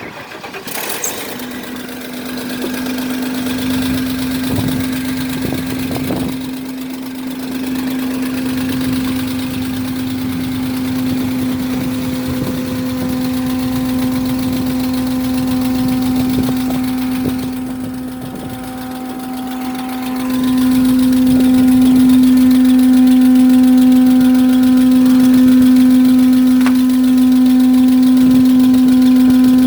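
An RV's engine running steadily at idle, with a steady humming tone. It comes in about a second and a half in and grows louder about twenty seconds in.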